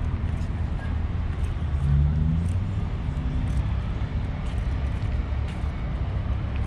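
Outdoor ambience: a steady low rumble with faint scattered ticks.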